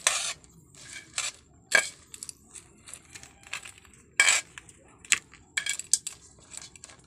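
A metal utensil clinking and scraping against a metal pan as cooked crawfish are tipped out onto a plate, their shells clattering. The sound comes in short, irregular clatters.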